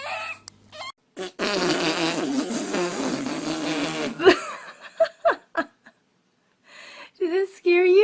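A long fart lasting about three seconds, sputtering with a wavering low pitch, followed by short bursts of voices or laughter.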